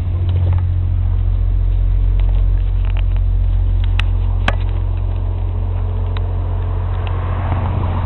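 Inland motor tanker's diesel engine running at low speed as a steady, deep rumble. Two short sharp clicks come about halfway through.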